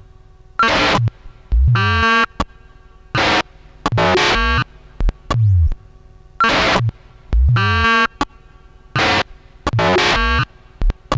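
Experimental electronic noise music from a Soma R.O.A.T. and a monome norns run through a Nux Atlantic pedal: about ten loud, abruptly chopped synthesizer bursts with near-quiet gaps between them. Some bursts carry stacked tones that bend in pitch, and several have a low tone dropping in pitch.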